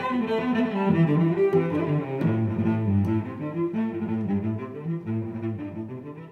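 Outro music with a melodic line, gradually fading out toward the end.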